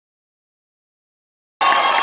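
Silence, then near the end a sudden cut-in of a live audience cheering over music.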